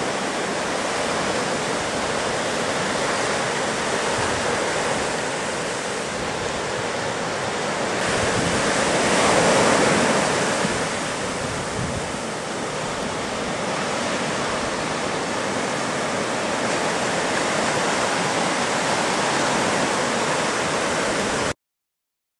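Ocean surf: a steady wash of breaking waves, swelling louder for a few seconds near the middle as a wave breaks, then cutting off suddenly near the end.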